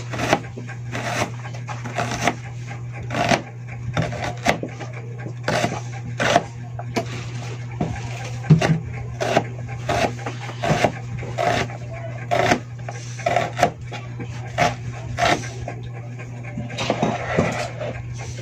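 Kitchen knife chopping an onion on a cutting board: irregular knocks of the blade striking the board, about one or two a second. A steady low hum runs underneath.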